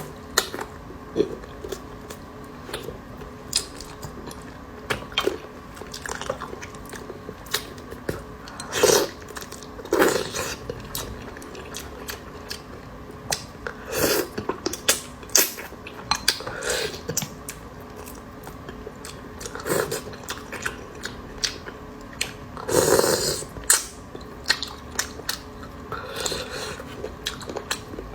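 Close-miked mukbang eating sounds: irregular wet chewing, biting and lip smacks, with a few longer bursts of chewing.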